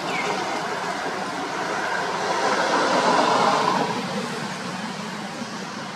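A passing vehicle: an even road noise that swells to a peak about three seconds in and then fades away.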